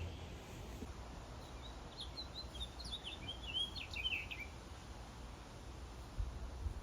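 A songbird singing a run of quick chirping, twittering notes, from about a second in to about halfway through, over a steady low outdoor rumble.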